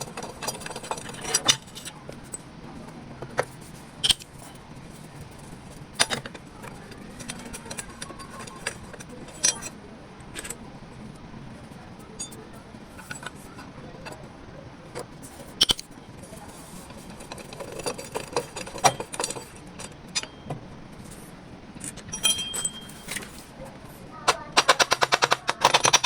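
Hand tools working on metal parts: scattered sharp clinks and knocks, with a fast, even run of ticking near the start and another near the end.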